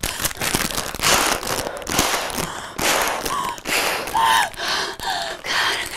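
A woman breathing hard in gasps with her face in a crumpled crisp bag, with a few short high cries between the breaths.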